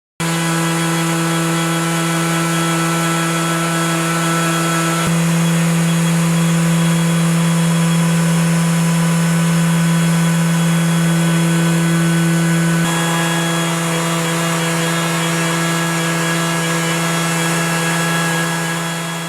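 Plunge router spinning a chamfering bit, a steady motor whine with a strong low hum. It cuts in abruptly, its tone pattern shifts slightly about five and thirteen seconds in, and it fades out near the end.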